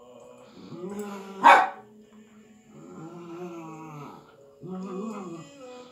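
Poodle puppies play-growling at each other, with one sharp bark about a second and a half in, then two more stretches of growling.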